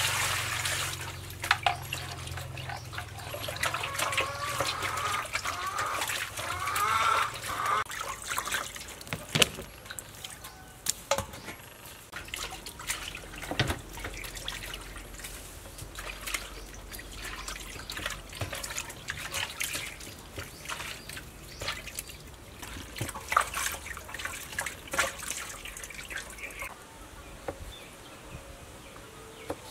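Hands sloshing and splashing water in a large aluminium basin while washing raw meat, with scattered splashes and drips throughout.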